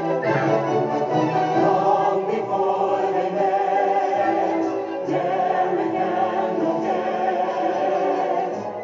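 A choir of voices singing a slow, sustained song with musical accompaniment.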